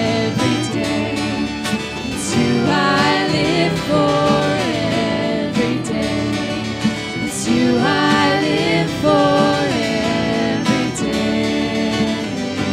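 Live worship band playing a song: strummed guitars under a bowed violin, with a melody line rising and falling over the steady accompaniment.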